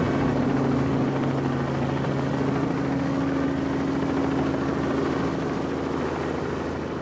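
Helicopter running, heard close up from a camera mounted on its open-door frame: steady engine and rotor noise with a low hum.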